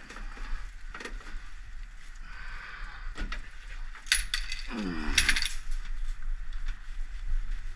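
Metal capture pole clinking and scraping against the vending machine's sheet-metal frame: a few light knocks, then two bursts of sharp metallic clinks about four and five seconds in. Between them comes a short falling voice-like sound.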